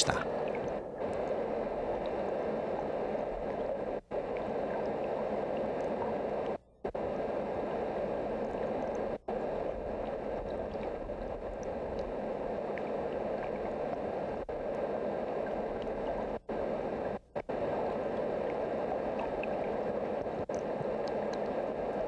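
Fast-flowing river water rushing and gurgling: a steady watery noise that cuts out briefly several times.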